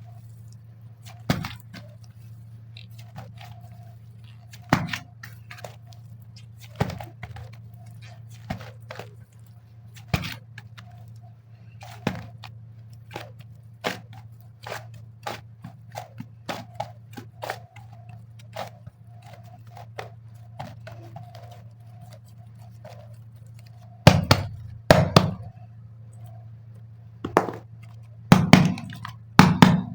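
Hands unboxing and handling super clay and its packaging: a string of sharp clicks and taps, with heavier thunks about 24 seconds in and again near the end.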